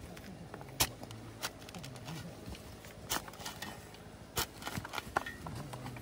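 Hand shovel and hoe working the dirt of a trail, with several sharp knocks as the blades strike soil, roots or stones.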